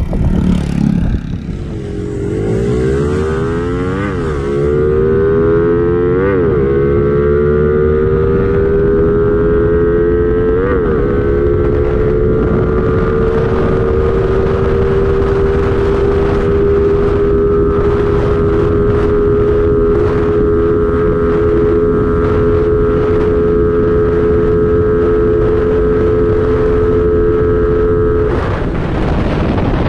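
Suzuki Smash 115's single-cylinder four-stroke engine, fitted with an aftermarket 6.0 Showa racing camshaft, pulling hard under acceleration. Its pitch climbs with brief drops at the upshifts about four, six and eleven seconds in, then holds a steady high note at speed. The sound changes near the end.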